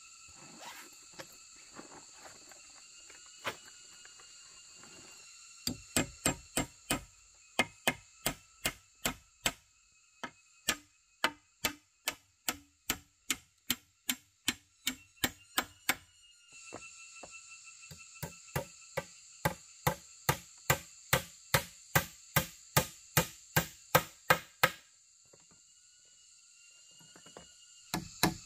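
Regular blows of a tool striking wood, about two a second, in two long runs with a short break between; a few lighter knocks come before them.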